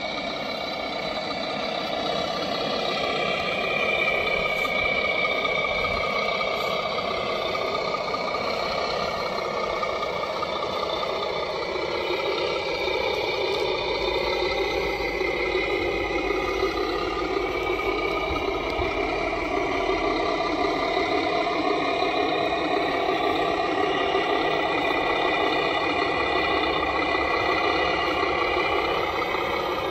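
Tamiya RC Mercedes-Benz Actros truck driving steadily, its engine sound running throughout and slowly rising and falling in pitch.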